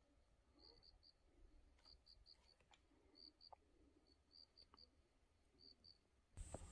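Faint cricket chirping over near silence: short notes at one high pitch in groups of two or three, repeating about once a second. Near the end a louder rush of noise cuts in suddenly.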